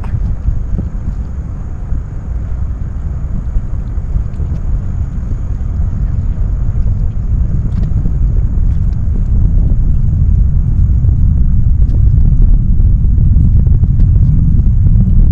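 Distant low rumble of a SpaceX Falcon 9 Block 5 rocket's engines at launch, heard from about 13 miles away, growing steadily louder.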